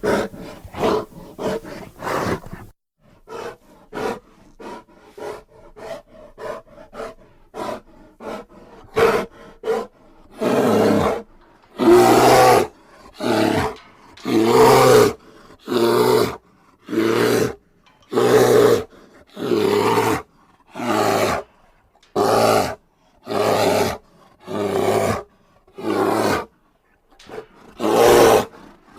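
Bear vocalizing: a run of short, quick calls for about the first ten seconds, then longer, louder calls of about a second each, repeating roughly every second and a half.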